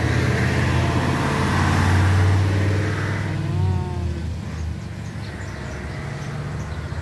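A motor vehicle's engine passing close by. Its low hum builds to a peak about two seconds in, then fades away in the second half.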